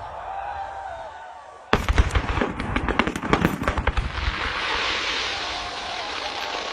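Aerial fireworks going off. A rapid volley of sharp bangs and crackles starts suddenly a little under two seconds in, then gives way to a dense hissing crackle.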